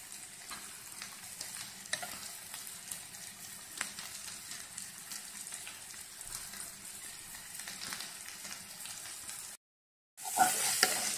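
Sliced onions and green chillies frying in coconut oil in a non-stick pan: a faint steady sizzle with occasional small crackles. Near the end the sound drops out for a moment, then comes back louder as a wooden spatula stirs the pan.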